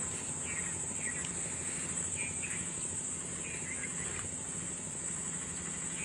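Steady high-pitched drone of insects, with a bird giving short chirps every second or so.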